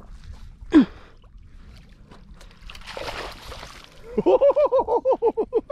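A juvenile striped bass splashing in shallow water as it is scooped into a landing net. A brief falling squeak comes about a second in, and near the end a loud rapid string of short pitched calls, about eight a second, takes over.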